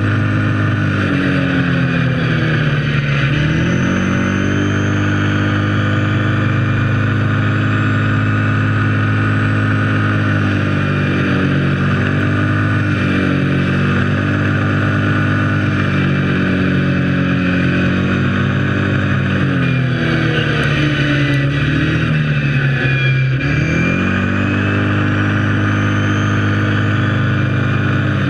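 Kawasaki KFX 700 quad's V-twin engine running under way, steady for long stretches. The engine note drops and climbs back up about a couple of seconds in, and again about two-thirds of the way through, as when it slows and picks up speed again.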